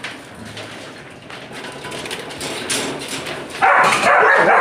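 Two dogs scuffling, with a loud harsh burst of noise starting about three and a half seconds in.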